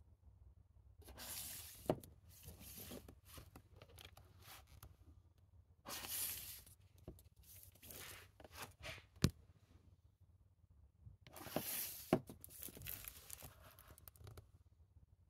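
Shrink-wrapped plastic Blu-ray cases being slid off and onto a shelf and handled, in bursts of rustling and scraping about every five seconds, with a few sharp clicks of case against case or shelf.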